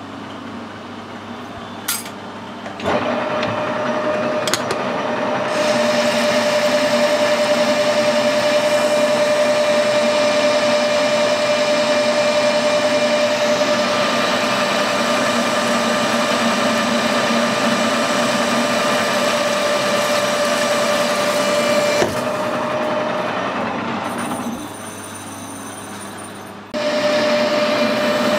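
Metal lathe starting about three seconds in, then running with a steady gear whine while a turning tool cuts along a steel bar, reducing its diameter. Near the end the sound drops back briefly, then the lathe and cut come back in suddenly.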